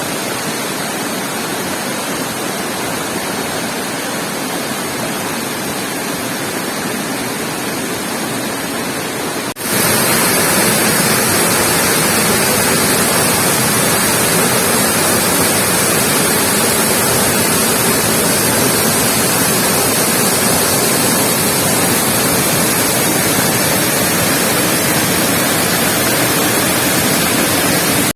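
Steady rush of a waterfall's falling water. About ten seconds in it switches suddenly to a louder, hissier rush.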